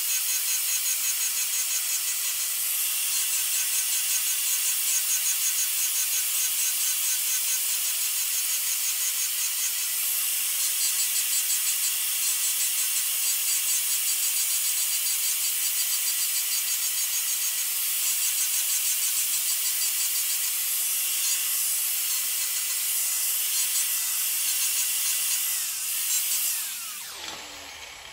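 Handheld angle grinder running with its blade held against the flat lathe way surface, grinding off high spots marked with dye as a power-tool stand-in for hand scraping: a steady motor whine over a grinding hiss. Near the end it is switched off and the whine falls as the grinder spins down.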